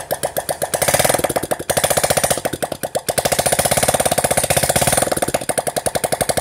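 Hero HF Deluxe's single-cylinder four-stroke engine, freshly rebuilt, running with no exhaust pipe fitted, so each firing comes out of the bare exhaust port as a sharp pop, about ten a second. It gets louder twice for a second or two.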